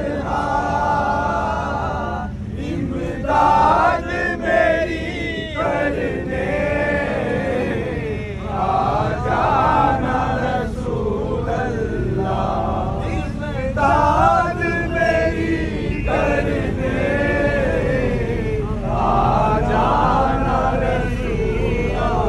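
A crowd of men chanting together in loud, repeated phrases that rise and fall, over a steady low hum.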